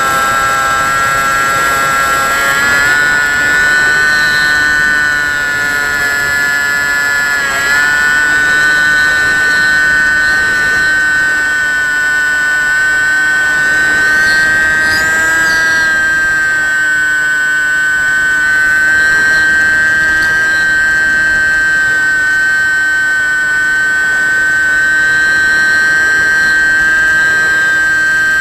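The Bixler 1.1's 2620-size 1900kv brushless outrunner motor and propeller whine at a steady high pitch, recorded by the camera on board. The pitch dips and recovers briefly about two and a half and seven and a half seconds in as the throttle changes, then holds steady.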